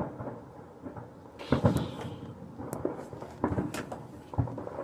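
Distant fireworks going off: several dull booms, the loudest about a second and a half in, with crackling between them.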